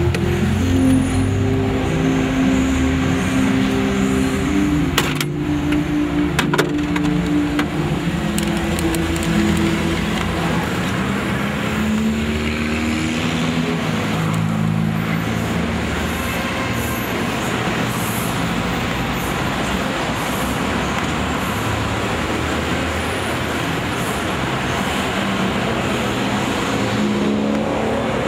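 A car driving: steady engine and road noise throughout. Low droning tones shift in pitch during the first half, and a couple of sharp clicks come about five and six and a half seconds in.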